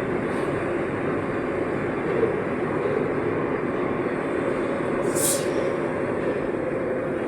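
Santiago Metro AS-02 train running between stations, a steady rumble heard from inside the car, with a brief hiss about five seconds in.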